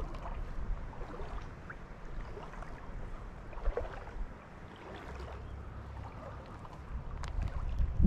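Shallow water swishing and lapping around the legs of a wader, a steady low rush with a few faint clicks.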